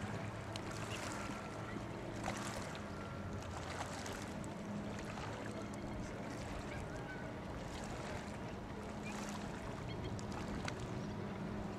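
Steady outdoor background noise with a low hum, and a few faint short chirps and clicks scattered through it.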